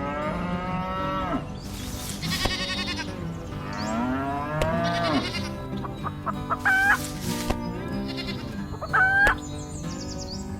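A run of farm animal calls, several gliding in pitch, with two short loud calls about seven and nine seconds in, over steady background music.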